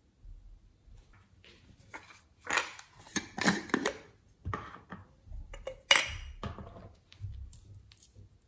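Small glass jars and plastic cosmetic containers being handled and opened: clusters of knocks, rubbing and clicks, with the sharpest click about six seconds in.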